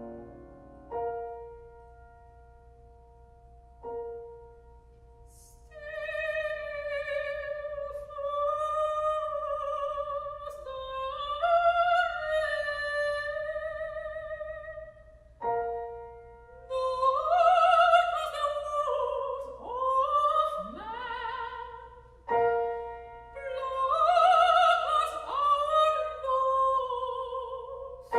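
Soprano singing slow, long phrases with vibrato over sustained piano chords. The piano strikes single chords about a second in and again at about four seconds before the voice enters, then more chords under the singing.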